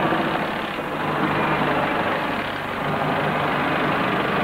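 An engine idling steadily, a low even running sound with no sharp knocks.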